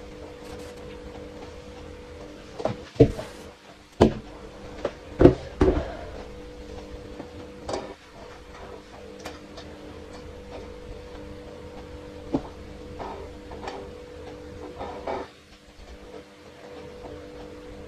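Kitchen work sounds: several sharp knocks and clatters, bunched together a few seconds in with a few lighter ones later, over a steady low hum.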